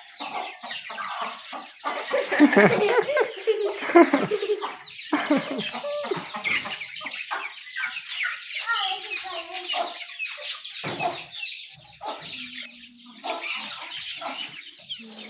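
Domestic hens clucking, mixed with chicks peeping, in short irregular calls.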